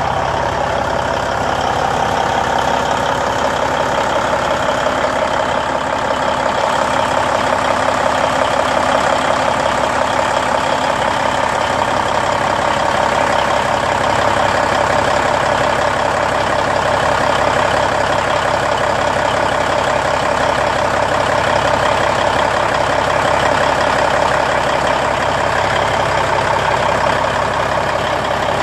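Cummins N14 inline-six turbo diesel in a Peterbilt truck idling steadily, freshly rebuilt after an in-frame overhaul.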